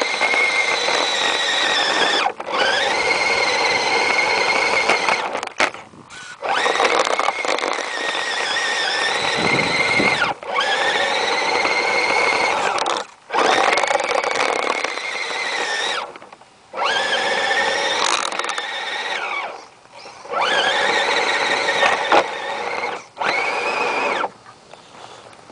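Axial AX10 radio-controlled crawler's electric motor and geared drivetrain whining under the load of pushing a snow plow. The pitch rises and falls with the throttle in about eight runs of a few seconds each, cut by short pauses.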